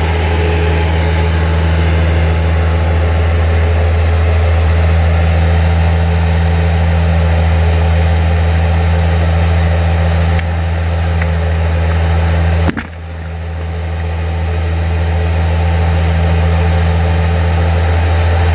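Bobcat skid-steer loader's engine running steadily while the loader works its raised bucket against a brick wall. A single sharp knock comes about thirteen seconds in, after which the engine sound drops and builds back up.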